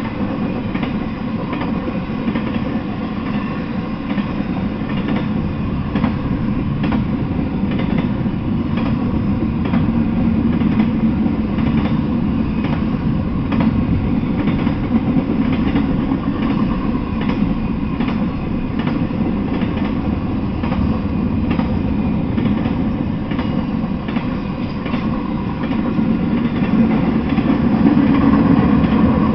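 Intermodal freight train rolling past, a car-load of trailers and stacked containers on flatcars: a steady rumble of steel wheels on the rails with frequent clicks. It grows a little louder near the end.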